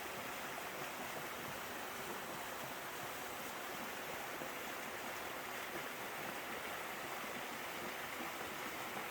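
Waterfall in a mountain valley stream, water pouring and splashing in a steady, unbroken rush.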